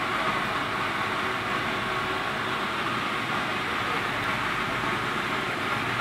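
Steady rushing machinery noise of a running solid-fuel package steam boiler, firing on briquettes, with a faint steady hum in it.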